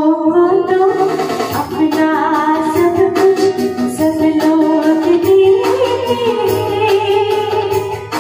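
A woman singing a Hindi Christian song close into a handheld microphone, her voice in long held, wavering notes over instrumental accompaniment.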